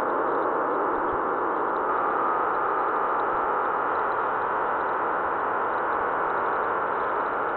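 Steady, dull hiss of static-like noise at an even level, with no music or tune heard.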